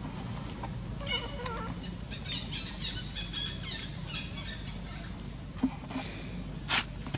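Young long-tailed macaque giving a run of high-pitched, wavering squeals and cries, typical of a distressed baby monkey, followed near the end by one short, sharp, louder sound.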